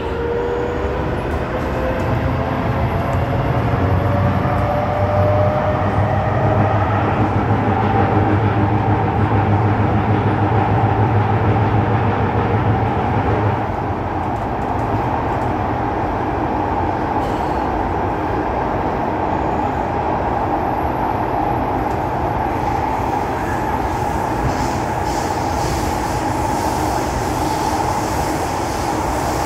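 Kawasaki Heavy Industries & Nippon Sharyo C751B metro train heard from inside the car while under way: a motor whine climbs in pitch over the first several seconds as the train picks up speed, over a steady rumble of wheels on rail. About 13 seconds in the low hum drops away and the car runs on with an even rolling noise.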